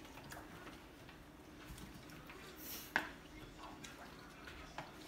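Faint eating sounds at a table: scattered clicks of chopsticks and a spoon against ceramic plates and wet chewing, with one sharper clink about three seconds in.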